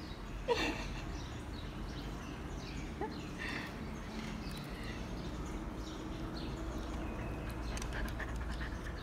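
Dog panting and sniffing close by, with a brief loud squeak about half a second in.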